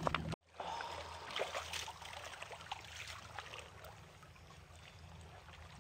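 Faint lapping and trickling of sea water with small scattered ticks and splashes. It starts after a brief drop-out in the sound near the start and fades gradually.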